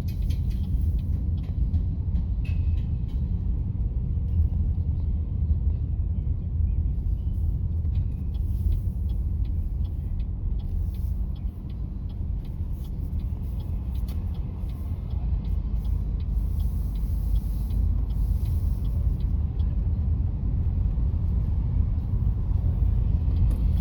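Steady low rumble of road and tyre noise inside a moving car's cabin.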